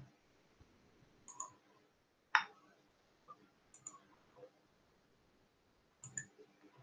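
Computer mouse clicks, several of them in quick pairs, spaced a second or two apart.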